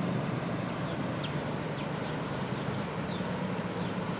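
A small bird chirping repeatedly, short high notes about twice a second, some dropping quickly in pitch, over a steady rushing background noise.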